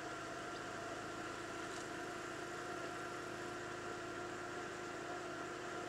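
Steady hum of an idling car engine, unchanging throughout.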